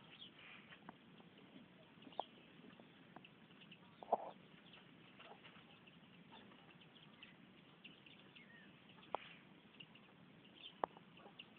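Hens clucking faintly, with a few sharp clicks or taps scattered through, the loudest about four seconds in.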